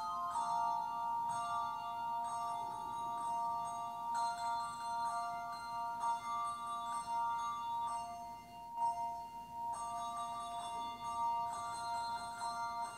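Instrumental music without singing: a few high notes held steadily together, with new notes coming in every second or so.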